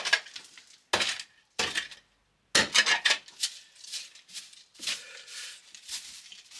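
A steel shovel digging and scraping into stony soil. There are a few separate loud strokes in the first three seconds, then a run of quicker, quieter scrapes and rattling grit.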